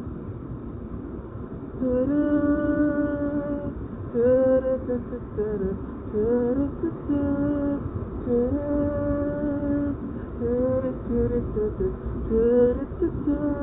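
A man's voice singing a wordless melody unaccompanied, beginning about two seconds in with long held notes broken by short sliding phrases. A low steady rumble of street traffic lies underneath.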